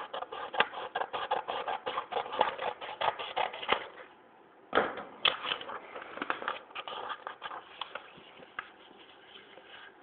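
A sheet of paper rustling and crackling as it is bent and folded by hand. A dense run of crinkling fills the first four seconds, then after a short lull there are two louder crackles about five seconds in, followed by fainter rustling as a fold is pressed flat.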